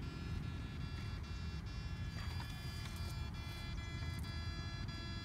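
Electrofishing machine giving off a steady high-pitched buzzing whine, with faint regular clicks through it, over a low rumbling noise.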